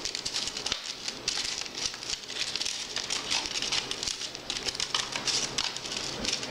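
Sticky, wet marshmallow candy paste being worked and squished in a plastic tray: a dense, irregular run of small sticky clicks and crackles.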